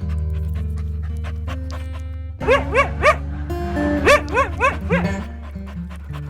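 Background music with a dog barking in short, high yips: three quick barks, then four more about a second later.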